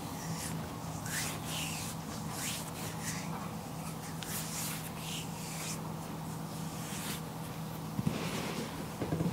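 Hands rubbing and stroking a foot during a massage: soft, irregular swishing strokes over skin, with a steady low hum behind and a light knock or two near the end.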